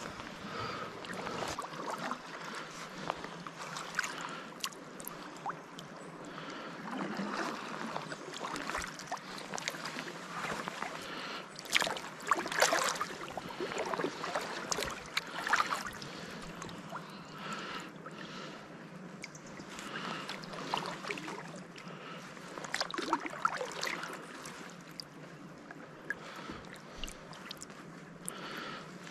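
Kayak paddle dipping and splashing in river water at irregular strokes, over a steady wash of current around the hull. The loudest splashes come about twelve seconds in and again a little after twenty.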